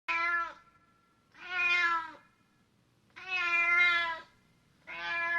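An animal calling over and over: four drawn-out, pitched calls, each under a second long, about a second and a half apart.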